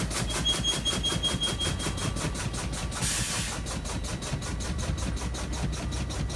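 An air-braked truck's low-air warning alarm pulsing rapidly, about five or six beats a second, over the low running of the idling engine, with air pressure pumped down below the alarm point. About three seconds in comes a short hiss of air as the brake pedal is fanned.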